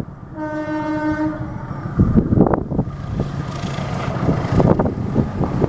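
Diesel locomotive sounding its horn in one blast of about a second near the start, then its engine rumble growing louder as it approaches, with a few sharp knocks from the wheels on the track.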